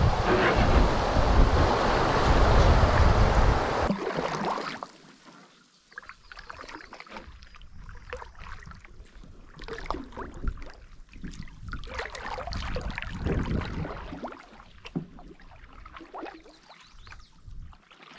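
Wind buffeting the microphone over water rushing past a moving canoe, loud for about four seconds, then a sudden drop to quiet, gentle lapping and trickling of water on a calm creek.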